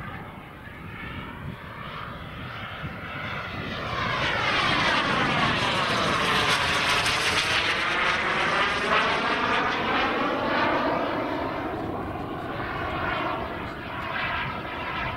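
JetsMunt M210 model jet turbine powering a 1/5-scale RC Dassault Rafale in flight, making a pass. It grows louder about four seconds in, stays loudest for several seconds as the jet goes by, then fades somewhat.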